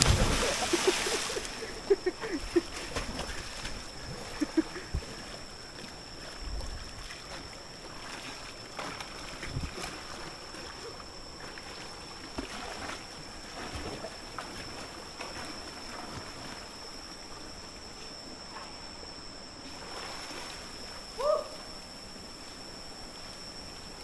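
A person jumping into a river: one big splash, followed by scattered smaller splashes and lapping water as they swim. A steady high-pitched tone runs underneath.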